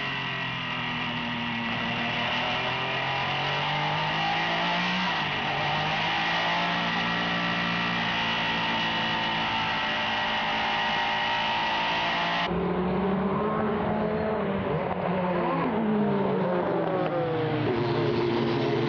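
Porsche 962C Group C race car heard from its cockpit, the engine running hard at speed, its pitch dropping about five seconds in and then climbing steadily. About twelve seconds in the sound cuts to trackside, where Group C prototypes including a Nissan R92CP drive past, engine pitch rising and falling.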